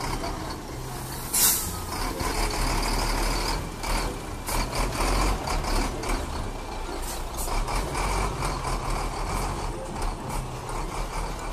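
Heavy truck's diesel engine running close by with a steady low rumble, and a short sharp air hiss from its brakes about a second and a half in.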